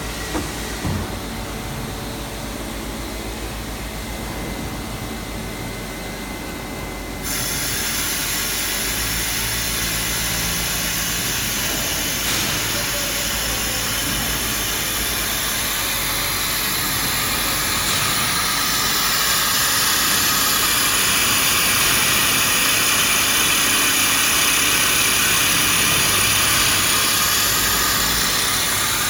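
WH 105 CNC horizontal boring mill running with a steady mechanical noise. About seven seconds in, a hiss suddenly comes in and grows louder through the later part.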